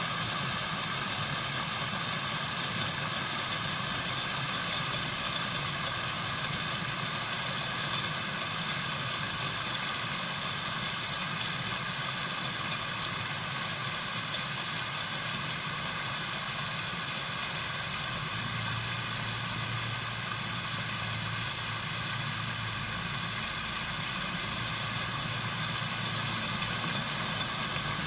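Fountain jets splashing down into their basin: a steady, even hiss of falling water.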